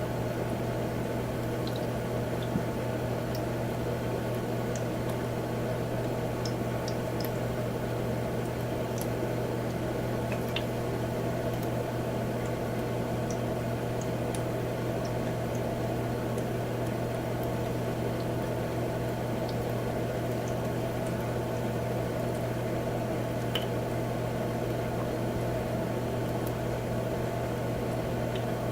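Humidifier running: a steady low hum under a constant churning, watery noise, with scattered faint ticks of water bubbling and dripping.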